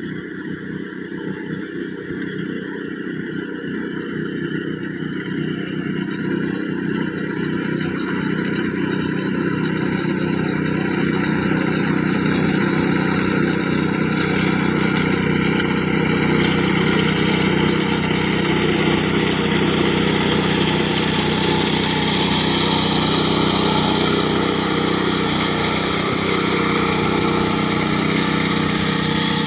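Engine of a rice-harvesting machine running steadily as it cuts paddy, getting louder over the first ten seconds or so and then holding level.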